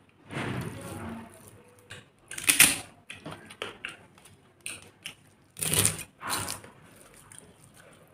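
Eating sounds: fingers working soft khichuri on a steel plate, with a few sharp, crisp crackles of papad. The loudest crackle comes about two and a half seconds in, and two more come around six seconds in.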